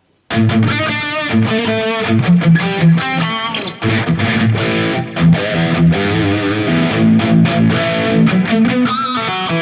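Electric guitar with a high-gain distorted tone through an amp-modeling unit, playing fast riffs and lead lines with wavering, vibrato-laden notes, starting abruptly a moment in.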